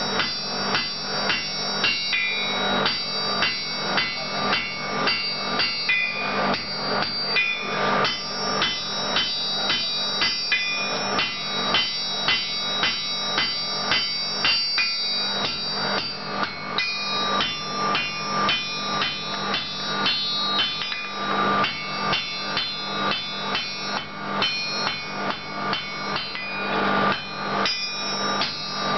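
Blacksmith's hand hammer striking red-hot steel on an anvil in a steady run of blows, about two a second, each with a bright metallic ring.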